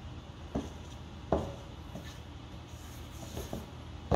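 Silicone spatula folding thick batter in a stainless steel mixing bowl: soft scraping, with a few knocks of the spatula against the bowl, the loudest about a second and a half in. A low steady hum runs underneath.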